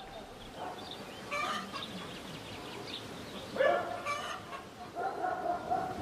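Poultry calling in the background: a few separate calls, the loudest about three and a half seconds in.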